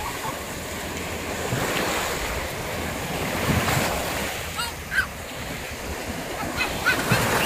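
Small waves washing in and breaking in shallow surf, with wind buffeting the microphone.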